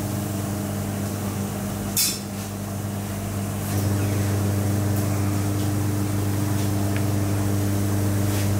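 Steady low electrical hum of kitchen machinery, with one short click about two seconds in.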